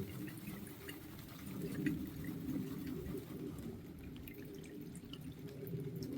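Liquid dripping: small, scattered drips over low, steady background noise.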